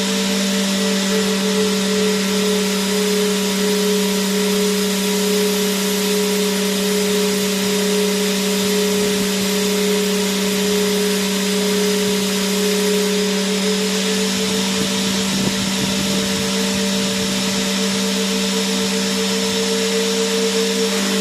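Vacuum cleaner motor running steadily: an even whooshing hiss with a constant low hum and a higher whine that wavers slightly.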